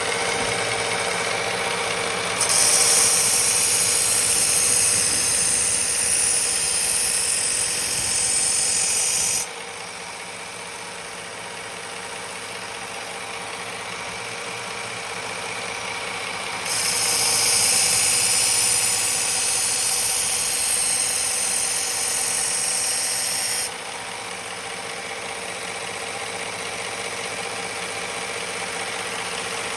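Powered knife-sharpening machine running with a steady motor hum, and twice a loud high hiss of about seven seconds each as the steel blade is ground against the abrasive to raise a burr on the edge.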